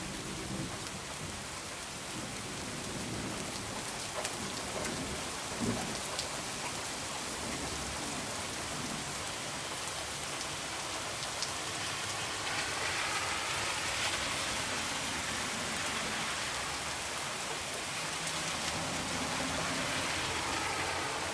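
Heavy rain falling steadily, with a few sharp crackles from a wood fire.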